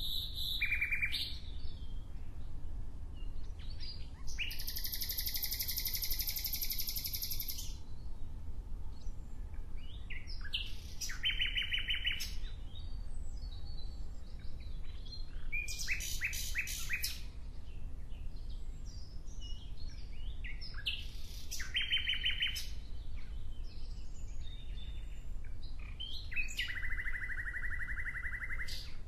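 A songbird singing, giving rapid trilled phrases of quickly repeated high notes every few seconds, the longest lasting about three seconds, over a steady low rumble.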